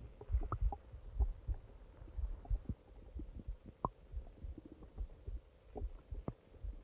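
Human stomach and intestines gurgling: soft, irregular low rumbles and thumps, with short sharp pops and squeaks scattered through, the clearest just under four seconds in.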